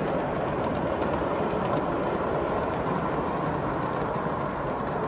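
Steady hubbub of a busy exhibition hall, with large-scale model trains rolling along the layout's track.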